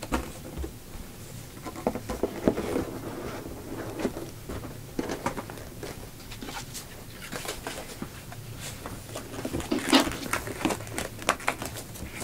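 Hands handling a cardboard collector's box, closing the lid over its contents and sliding the box into its outer sleeve, with scattered light knocks, taps and rubbing of cardboard. A cluster of sharper knocks comes about ten seconds in.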